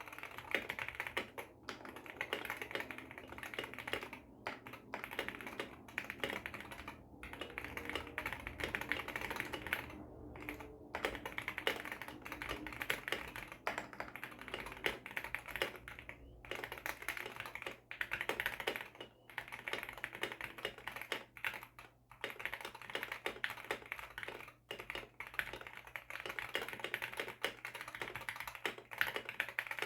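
Stock, unmodified Wooting 60 HE keyboard with its Hall-effect linear switches being typed on fast and continuously: a dense clatter of keystrokes, broken by short pauses about ten, sixteen and twenty-two seconds in.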